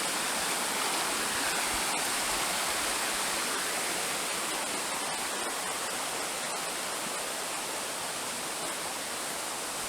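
Steady rush of flowing stream water, an even hiss that eases slightly toward the end.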